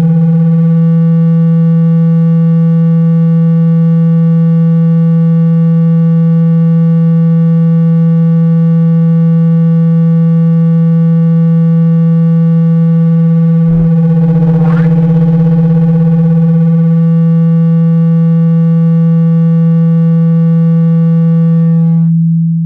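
Loud, steady low buzzing tone with many overtones, played through a phone speaker to shake accumulated water and dust out of the speaker grille. A click about 14 seconds in and a brief sweeping chirp just after; the tone fades out near the end.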